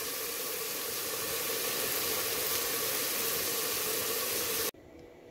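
Mutton liver masala sizzling steadily as it fries in a pot, cutting off suddenly near the end.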